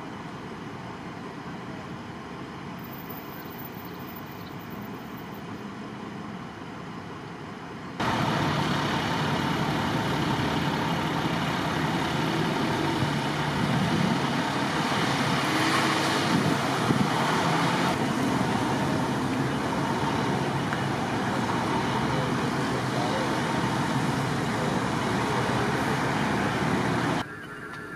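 Steady outdoor engine and traffic noise; it steps up suddenly and much louder about eight seconds in and drops back just before the end.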